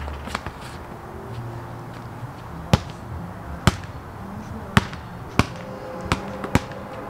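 Basketball bouncing on a concrete driveway as it is dribbled: about seven sharp single bounces at uneven intervals, most of them after the first two seconds.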